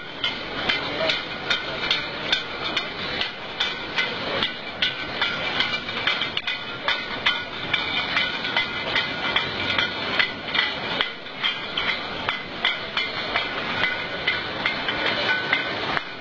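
Bottling-line clatter: filled glass bottles clinking and knocking against one another as they ride a conveyor, several sharp clinks a second over the steady noise of the line machinery.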